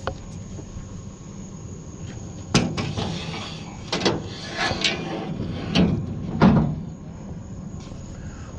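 A run of about five sharp knocks and clunks spread over a few seconds, over a low steady hum that fades out about two seconds in.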